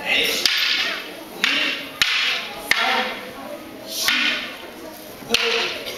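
Wooden jo staffs striking each other in a paired aikido jo kata: four sharp wooden clacks, with longer whooshing sounds around them.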